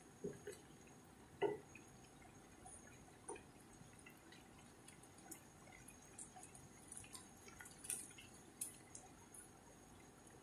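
Shrimp simmering in 7-Up in a frying pan: faint bubbling and popping of the boiling liquid, with a few soft knocks from a wooden spatula stirring, the loudest about a second and a half in.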